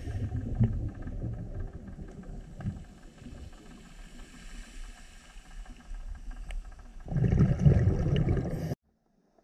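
A scuba diver's exhaled bubbles from the regulator, heard through an underwater camera: a low bubbling rush at the start that fades, then a louder burst about seven seconds in, with a few faint clicks. The sound cuts off suddenly near the end.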